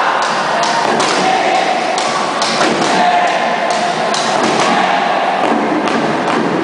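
Drums beating a steady cheer rhythm, about two beats a second, over a crowd shouting and cheering.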